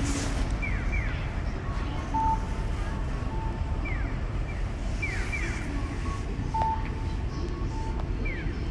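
Sparrow chirping: short downward chirps in quick runs of two or three, repeated every few seconds over a steady low rumble.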